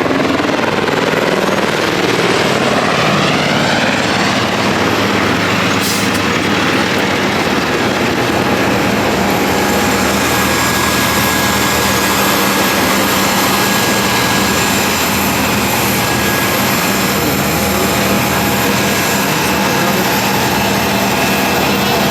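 Jet aircraft's engines running steadily, a loud continuous rush with several steady tones. Some tones slide in pitch over the first few seconds, then hold.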